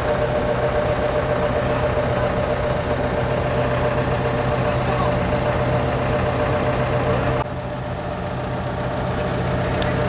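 Heavy-equipment diesel engine running steadily with a low drone. About seven seconds in the sound drops abruptly, then slowly builds again.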